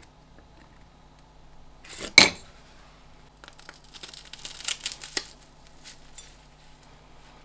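A single sharp crack about two seconds in, the loudest sound; then, from about three and a half seconds, a stretch of crisp crackling and crunching as a knife blade cuts through a caramel-coated popcorn ball.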